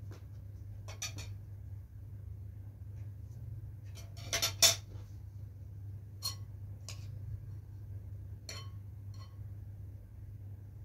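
Scattered light clinks and taps of kitchenware (metal tray, spoon and glass bowl) as grape leaves are handled and filling is spooned. The loudest cluster of clinks comes about halfway through, and a steady low hum runs underneath.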